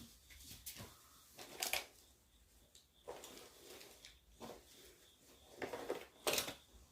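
Light snoring from sleeping people: several rough, noisy breaths a second or two apart, the loudest near the end, over a faint steady high whine.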